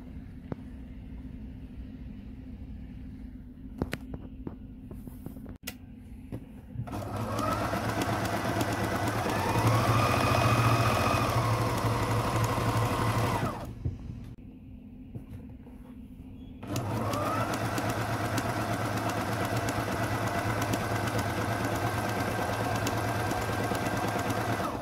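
Frister Rossmann Cub 3 electric sewing machine stitching a zigzag seam through fabric, in two runs. After a few seconds of light clicks, the motor winds up and runs, speeds up briefly, then stops. Some three seconds later it winds up again and runs steadily for about eight seconds.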